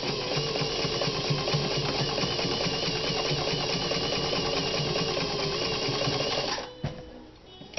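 Singer Fashion Mate 223 sewing machine running steadily, stitching through medium-weight leather belting with a straight stitch. It stops suddenly about six and a half seconds in, followed by a single click.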